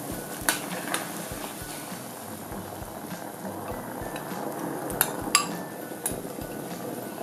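Sweet-and-sour sauce bubbling at the boil in a stainless steel pan, with several sharp metal clinks against the pan, two of them close together about five seconds in.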